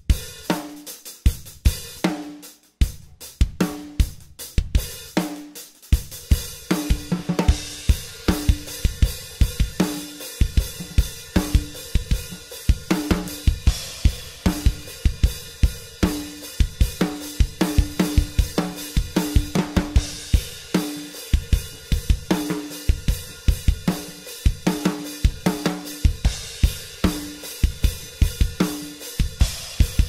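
Drum kit being played, showcasing Saluda 14-inch Symbolic hi-hats with a wavy bottom cymbal, over snare, kick and toms. Sparse, spaced hits in the first few seconds give way, about six seconds in, to a fast, busy groove under a continuous cymbal wash.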